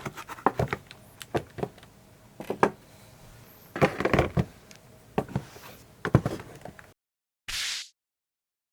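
Typing on an Akko ACR Top 40 mechanical keyboard with Gateron Pro Milky Yellow linear switches: irregular keystroke clacks, with a quick flurry of keys about four seconds in. The sound cuts off abruptly about seven seconds in, and a short burst of hiss follows.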